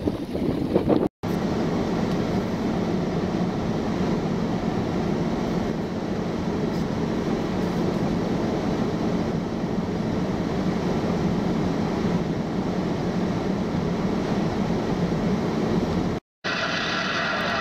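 Steady rumbling road noise of a vehicle driving, even and unbroken, with two brief dropouts at cuts, about a second in and near the end.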